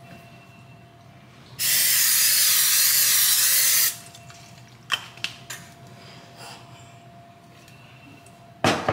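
An aerosol can of cooking spray is sprayed in one continuous hiss lasting a little over two seconds. It is followed by a couple of sharp clicks about five seconds in, and a loud knock near the end.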